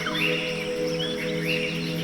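Soft ambient music of long held notes, with a new chord sounding at the start, under birds chirping over and over.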